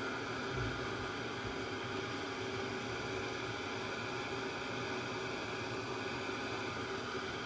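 Embossing heat tool running steadily, blowing hot air with a faint hum, to melt heat-activated adhesive powder on stamped paper.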